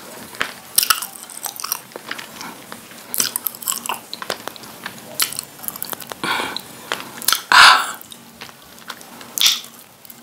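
Close-up biting and chewing of lumps of edible white clay (nzu, sold as "Nigerian cookies"), a dense run of sharp crunches and crackles. The loudest crunches come a little past the middle and again near the end.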